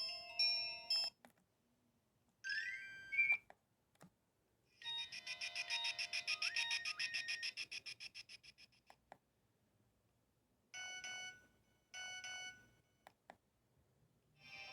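Nokia mobile phone's loudspeaker playing its built-in ringtones one after another, each cut short: a brief rising run of beeps, then a fast repeating electronic melody lasting a few seconds that fades away, then two short bursts, with a new tone starting near the end.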